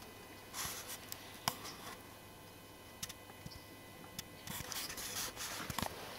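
Faint rustling and scraping with a few sharp clicks, louder and busier in the second half: handling noise as a handheld camera is moved around under the tractor.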